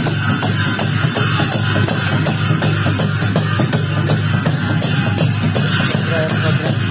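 Sakela dance music: dhol drums, with cymbals ringing on the beat, playing a quick, steady rhythm of about four strikes a second.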